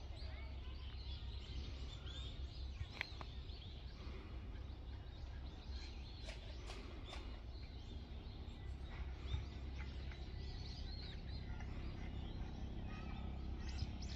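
Small birds chirping and calling many times over a low, steady outdoor rumble.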